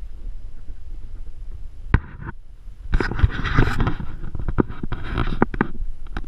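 Handling noise of an action camera being moved by hand: a sharp knock about two seconds in, then a run of clicks, taps and rustling against the camera body that lasts about three seconds. Low wind rumble on the microphone sits underneath.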